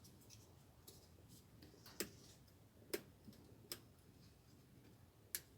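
Small plastic clicks and taps as a hose is worked by hand off a washing machine's linear pressure switch. There are four sharper clicks, starting about two seconds in, the last near the end, over a near-silent background.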